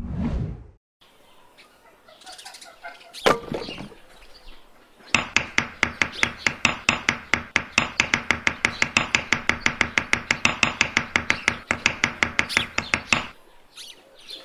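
Small hammer tapping a thin wooden stick post down into sand, with light, quick, even blows about five or six a second for roughly eight seconds, after one single knock.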